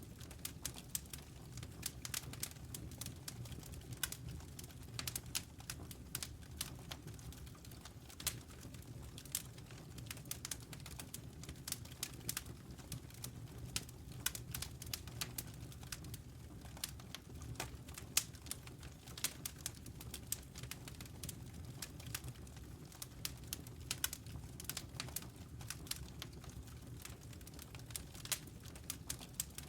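Wood campfire crackling, with many irregular sharp pops over a steady low rumble of the burning fire.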